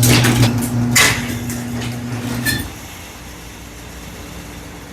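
Electric garage door opener motor humming as it runs the door, with loud bangs near the start and about a second in, then a sharp clack as the motor stops about two and a half seconds in: something in the door's cable-and-pulley rigging has snapped loose.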